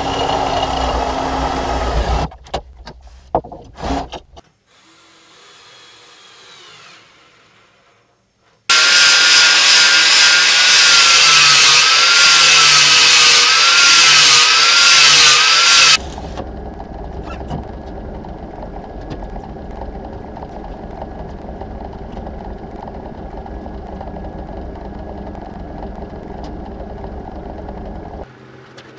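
Angle grinder grinding steel, loud with a wavering whine, running for about seven seconds in the middle and cutting off abruptly. Before it come shorter bursts of workshop noise, and after it a steady, quieter hum.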